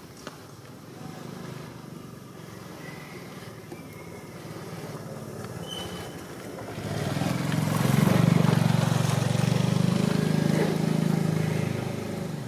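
A motor vehicle's engine passing close by: a low hum grows loud about seven seconds in, holds for a few seconds and fades near the end.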